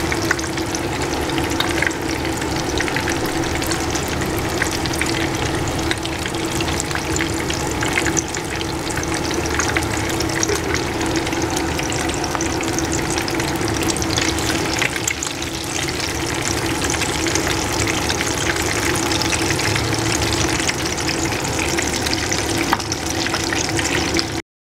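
Hot oil sizzling and crackling in a pan as squares of seafood tofu shallow-fry, steady throughout, with a steady hum underneath.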